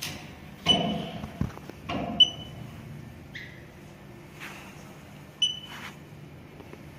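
Touchscreen control panel of a TSP-CV1 closed tissue processor beeping at finger taps: four short electronic beeps a second or two apart, three high-pitched and one lower. A steady low hum and a few soft knocks lie beneath.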